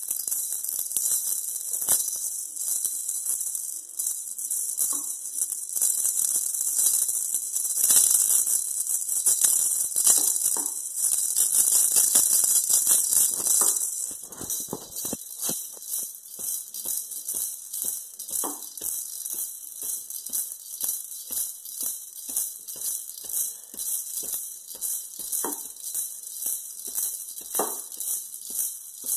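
A pair of maracas shaken with the feet, rattling. The shaking is fast and near-continuous for about the first half. It then settles into a steady rhythm of about two shakes a second.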